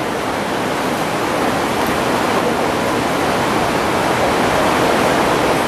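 A steady, loud rushing hiss, even across the whole range with no rhythm or pitch, swelling slightly near the end.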